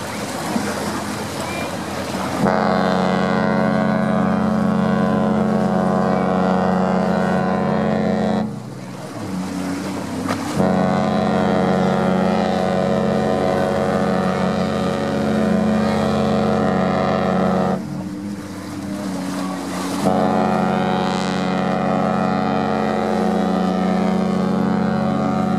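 The Allure of the Seas' ship's horn sounding three long, steady blasts of about six to seven seconds each, as its departure signal. The first starts about two seconds in, with short gaps of hiss between blasts.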